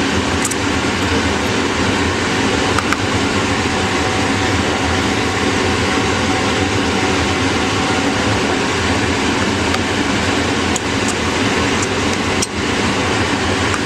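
Steady, loud whooshing of a fan or air-handling unit, with a few light clicks and taps from handling the drive.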